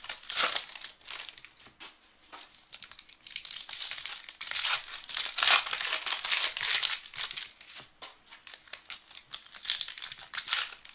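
Trading card pack wrappers being torn open and crinkled by hand, in irregular bursts of rustling.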